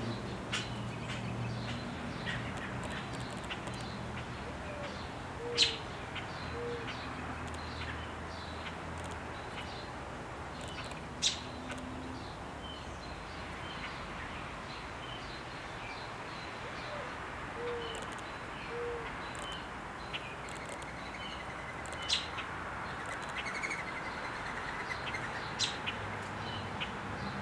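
American robins calling to a nestling about to leave the nest: four loud, sharp chirps spaced several seconds apart, with fainter chirps between them and two pairs of short, soft low notes.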